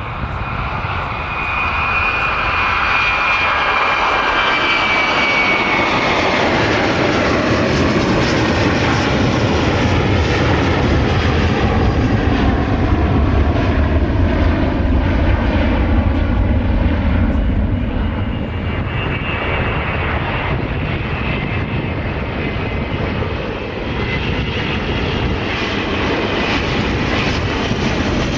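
A twin-engine widebody jet airliner's engines at takeoff thrust as it rolls and lifts off: a loud, steady jet roar. In the first few seconds a high whine falls in pitch as the aircraft passes.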